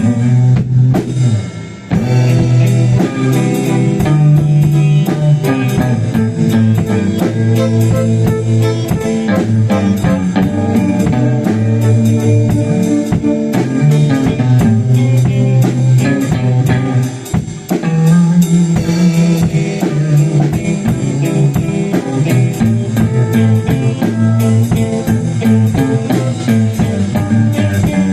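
A rock band jamming live: electric guitar, bass guitar and drum kit, with steady, evenly spaced cymbal strokes. The level drops briefly about two seconds in and again about two-thirds of the way through.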